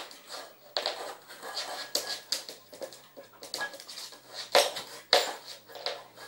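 A measuring cup clattering and scraping on a laminate floor as an Alaskan Malamute puppy chews it and knocks it about: irregular clicks and knocks, the two sharpest about four and a half and five seconds in.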